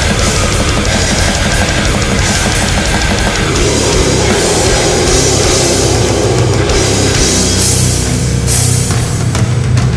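Death doom metal recording: distorted guitars over a drum kit, with dense, rapid drumming that gives way about three and a half seconds in to a heavier, lower-pitched passage.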